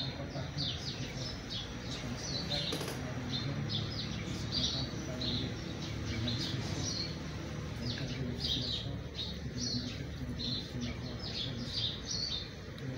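Small birds chirping without a break: short, high chirps, several a second, over a low steady background noise.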